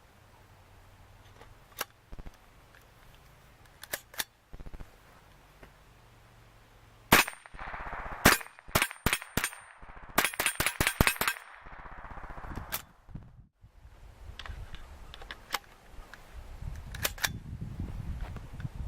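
A .22 LR semi-automatic rifle (an AR-15 fitted with a CMMG .22 conversion bolt) firing a series of light, sharp cracks. A few faint clicks come first, the loud shots start about seven seconds in, with a quick string of about ten shots fired rapidly near the middle and single shots after.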